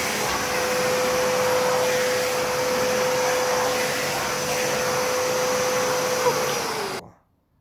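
Kärcher WD 3 wet-and-dry vacuum cleaner running, a steady rush of air with a steady motor whine. Near the end it is switched off: the whine sags a little in pitch and the sound cuts out.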